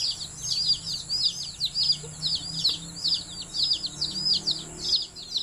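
A box of few-days-old chicks peeping without a break: a quick, steady run of high, falling peeps, about three a second.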